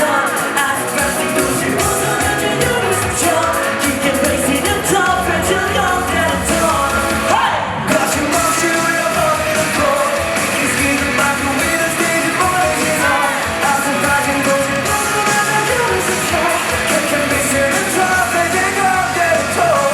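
Live rock band playing with a singer's vocals, heard loud through a fancam's microphone.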